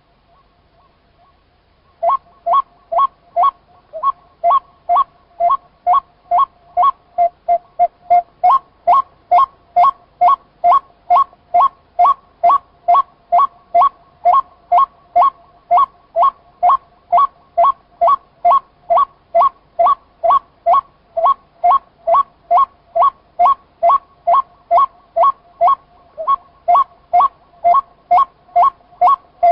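White-breasted waterhen calling: a long, very regular series of short two-pitched notes, about two to three a second, starting about two seconds in.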